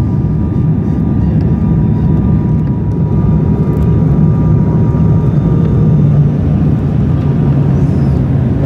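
Steady loud rumble of an airliner heard from inside the cabin as it lands and rolls down the runway, with faint steady high tones that fade out in the later part.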